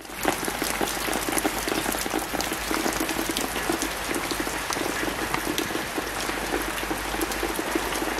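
Steady rain falling on wet gravel and timber: an even hiss dotted with many small drop ticks.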